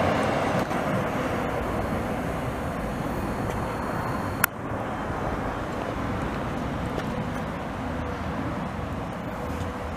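Duewag TW 6000 articulated tram rolling away along the track, its steady rumble slowly fading. A single sharp click comes about four and a half seconds in.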